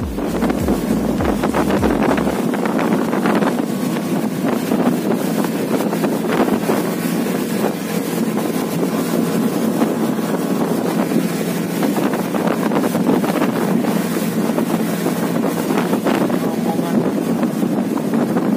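Honda 90 outboard motor driving a speedboat at speed, a loud steady drone mixed with rushing water against the hull. Wind buffets the microphone.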